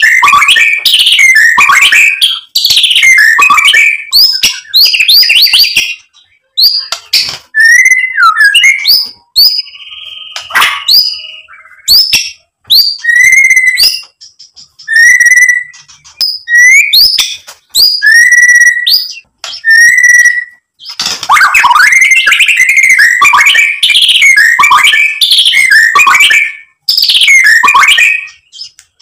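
White-rumped shama singing loud, varied whistled phrases with quick pitch glides. Short gaps and a run of short repeated whistles come in the middle, and the song turns dense and rapid for the last third.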